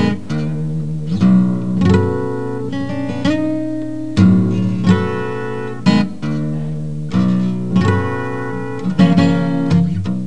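Live band music: a guitar strumming chords, each struck sharply and left to ring before the next.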